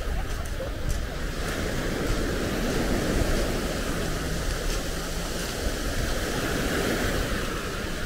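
Sea waves washing in on the pebble beach at Nice, a steady surf with a slight swell in level, and wind buffeting the microphone.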